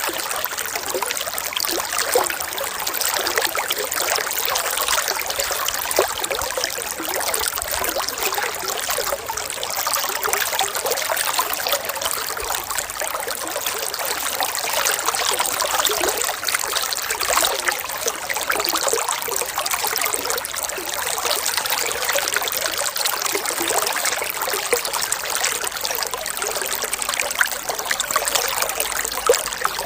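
Steady trickling, babbling water, like a small stream running over stones, with no let-up.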